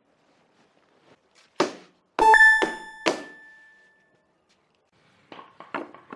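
A knock, then a loud ringing ding that fades over about a second and a half, another knock, and a few light clicks near the end.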